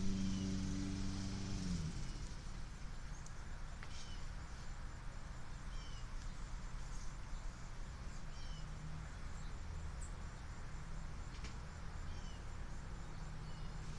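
A bird repeating short falling chirps about once a second. A low engine hum stops abruptly about two seconds in.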